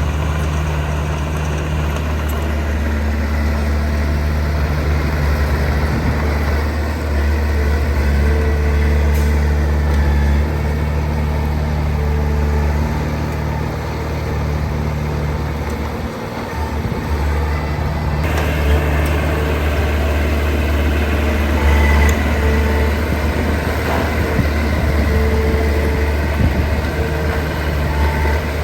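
Heavy diesel engine of earthmoving machinery running steadily with a deep, even note, which dips briefly a little past the middle before carrying on under load.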